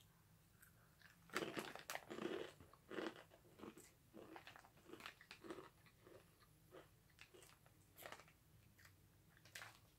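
Takis Original rolled tortilla chips being bitten and chewed: loud crunches about a second in, then steady crunchy chewing that gradually gets quieter.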